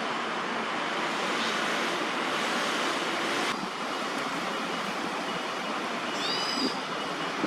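Steady outdoor background hiss, with its upper part cutting down abruptly about halfway through. A short high bird call, a few quick curved notes, comes about six seconds in.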